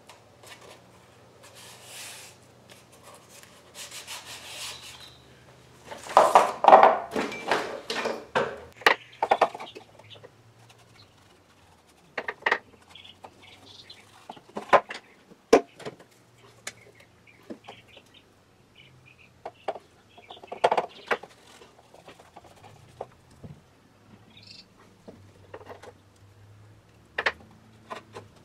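Hands working on a small wooden model boat hull at a workbench, with tape and a paintbrush: scattered rubs and light clicks, busiest about six to nine seconds in, over a steady low hum.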